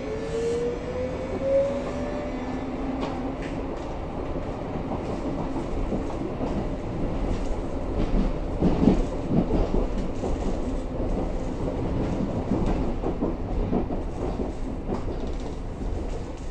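Interior of a Berlin U-Bahn class H train on the move: a motor whine rising in pitch over the first couple of seconds as it pulls away, then a steady running rumble with irregular wheel clatter over the rail joints, loudest about nine seconds in.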